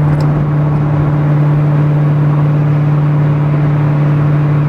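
C6 Corvette Z06's LS7 V8 running at a steady cruise, a constant low drone that holds one pitch, over road noise.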